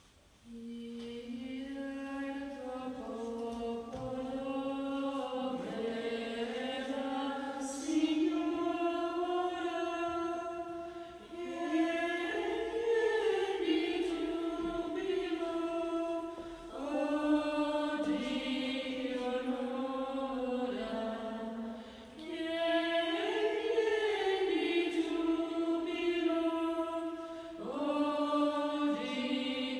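Choir singing a slow chant in long held phrases of about five seconds each, starting about half a second in.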